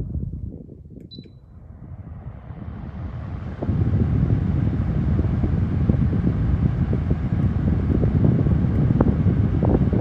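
Woozoo electric fan's airflow buffeting the microphone as a low, noisy rush. It fades for a second or two, a single short beep from the fan sounds about a second in, then the airflow builds back up and holds steady from about four seconds in.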